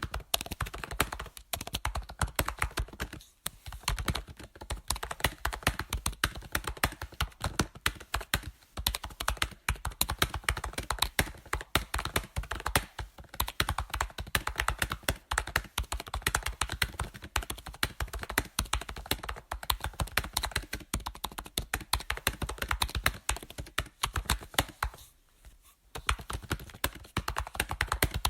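Computer keyboard typing: rapid, continuous key clicks and taps, with short pauses between bursts and a longer pause about three-quarters of the way through.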